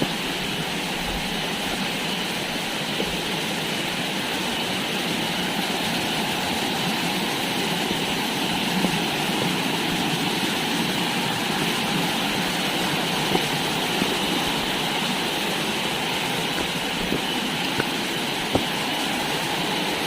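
Waterfall: the steady rush of falling water, an even, unbroken noise.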